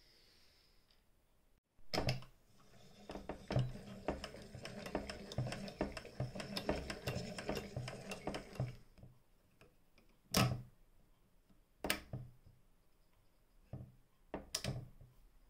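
Singer 99K hand-crank sewing machine mechanism turning, a rapid mechanical clatter for about six seconds, after a single sharp click. Four separate clicks follow as a hand works the controls beside the handwheel.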